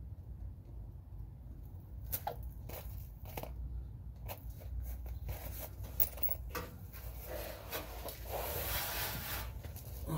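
Hands handling small exhaust bolts at the flange of a catback exhaust, giving scattered light clicks and scrapes, with a longer rubbing rustle about eight seconds in, over a low steady hum.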